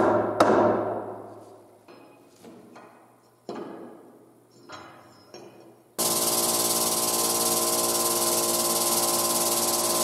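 A hammer drives a steel punch on a workbench: a series of blows, the first two the loudest, each leaving a metallic ring that dies away. About six seconds in, an electric machine starts abruptly and runs steadily, a hiss with several steady humming tones.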